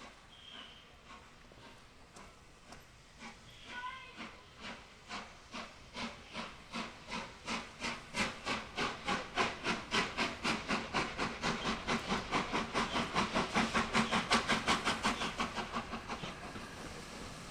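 Steam locomotive 60163 Tornado, a three-cylinder A1 Pacific, working hard: its exhaust beats come louder and faster, from about one a second to about four a second, as it picks up speed, then fade away near the end.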